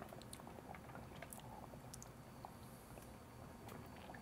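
Near silence with faint, scattered little clicks and mouth sounds of people sipping a drink from glasses and tasting it.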